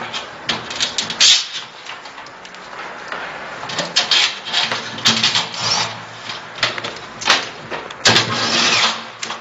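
Machinery running, with irregular clicks, knocks and short bursts of hiss over a low steady hum.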